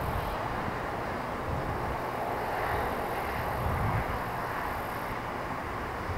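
Steady rumble of jet aircraft engines running at idle, with slow gentle swells in level.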